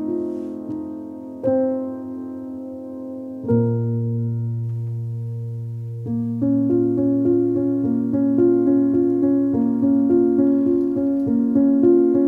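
Background piano music: slow held chords, with a low bass note entering about a third of the way in, then a steadier pattern of repeated notes from about halfway.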